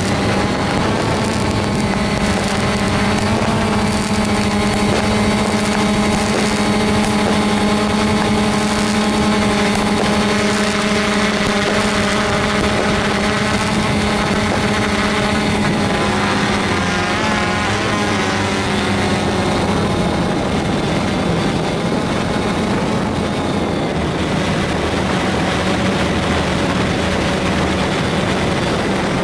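Quadcopter drone's motors and propellers running steadily in flight, a hum with a stack of higher overtones. About sixteen seconds in, the pitch wavers and shifts for a few seconds as the motors change speed, then settles again.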